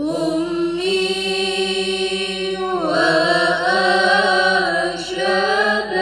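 Women's voices chanting an Arabic syair in chorus, long held notes sung together. The singing starts after a brief pause and the melody shifts about three seconds in.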